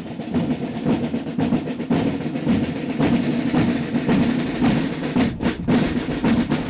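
A marching drum corps drumming: dense, continuous strokes with drum rolls.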